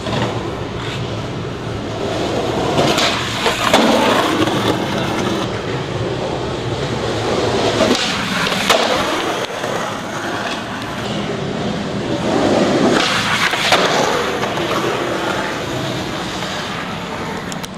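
Skateboard wheels rolling over concrete, with a few sharp clacks of the board popping and landing scattered through.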